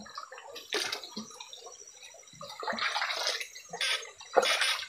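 Shallow stream water splashing and dripping in irregular bursts, stirred as electrofishing rods and the wader move through it.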